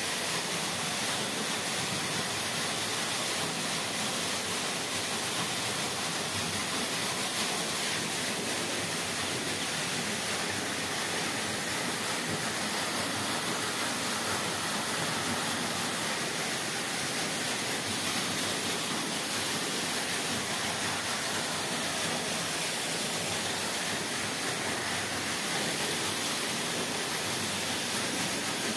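Borewell water pouring steadily from a pipe into an open dug well, a falling stream splashing onto the water surface below.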